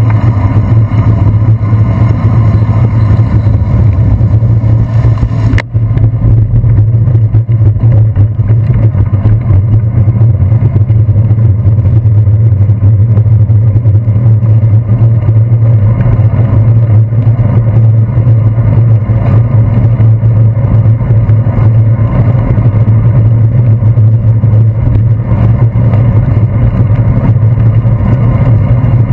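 Steady, loud low rumble of wind and road vibration picked up by a handlebar-mounted GoPro Hero 2 in its housing while riding a bicycle on wet pavement. The sound briefly drops out about six seconds in.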